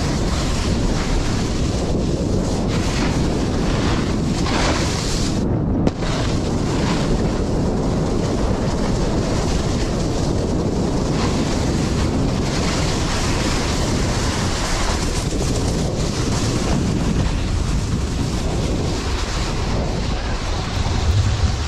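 Wind rushing over the microphone: a loud, steady noise heaviest in the low end, with a brief break in the hiss about six seconds in.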